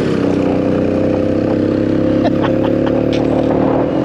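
Francis Barnett Falcon's 198cc two-stroke single-cylinder engine running at steady revs under way, the note dipping slightly near the end.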